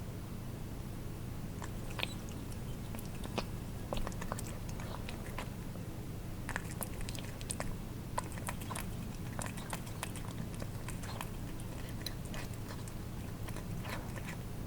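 Cats eating wet food: irregular wet lapping and chewing clicks of tongues and teeth, over a steady low hum.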